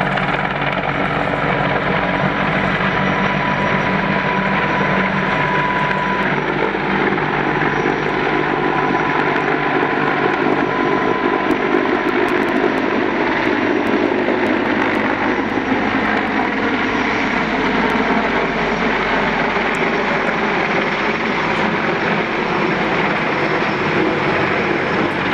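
Firefighting helicopter's engine and rotors running loud and steady overhead; a high engine whine fades out about six seconds in.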